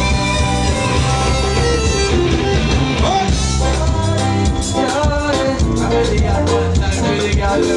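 Loud music with a steady bass beat, guitar and a singing voice.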